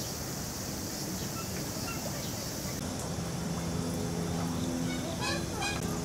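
Bird calls: a few faint short chirps in the first couple of seconds, then a quick run of calls about five seconds in, over a steady low hum.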